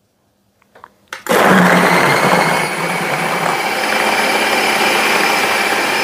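Ninja food processor switched on after a couple of faint clicks, its motor starting about a second in and then running steadily as it purees strawberries and milk.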